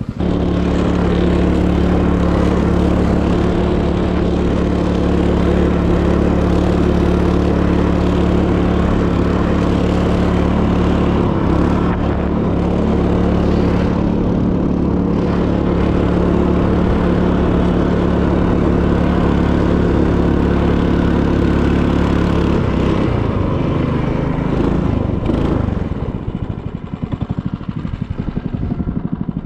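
Small petrol engine of a motorized snowboard (motodoska) running at a steady speed under way, its note holding constant. Near the end the engine note drops and it gets quieter.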